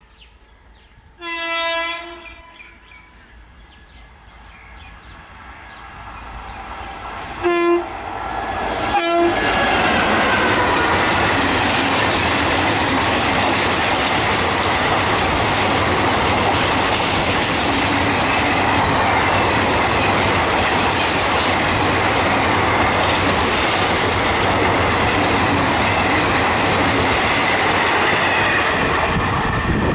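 WAM4 electric locomotive's horn: one long blast about a second in, then two short honks some six to eight seconds later. The 24-coach express then rushes past at speed, with a steady loud clatter of wheels over the rails.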